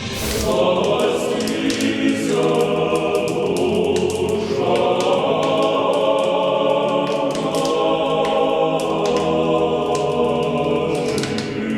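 A choir singing a slow, sustained chant in the style of Orthodox church music, entering at the start and fading out near the end.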